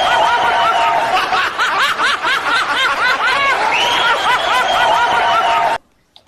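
Rapid snickering laughter, a string of quick rising-and-falling 'he-he' calls with a longer drawn-out note among them, the same stretch seeming to repeat like a looped laugh sound effect; it cuts off suddenly near the end.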